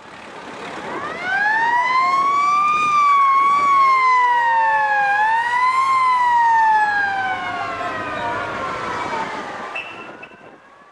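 An emergency vehicle siren wailing. It swells in over the first second or so, rises, dips and rises again, then slowly falls in pitch and fades out near the end.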